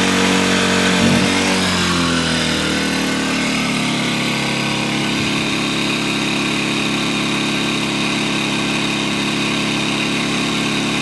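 Kipor IG1000P four-stroke inverter generator running. Its engine speed drops over two or three seconds as the smart throttle (economy mode) is switched on, then it settles into a steady, lower-revving run.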